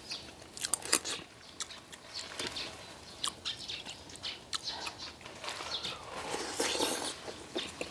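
Eating sounds: a metal spoon clicking and scraping against stainless steel bowls, with scattered irregular clicks and a stretch of slurping or chewing near the end.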